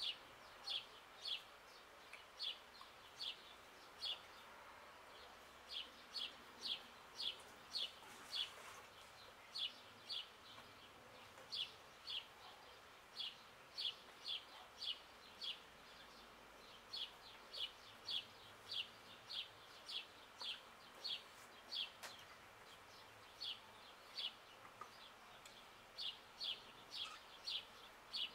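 A small songbird singing nearby, repeating a short high chirp about two to three times a second in runs of several notes with brief pauses, over faint outdoor background hiss.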